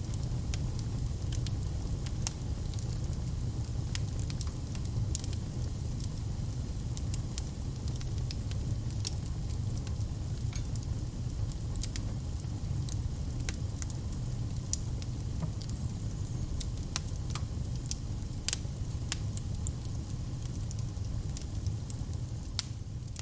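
Wood fire burning with a steady low rumble and frequent sharp crackles and pops scattered irregularly.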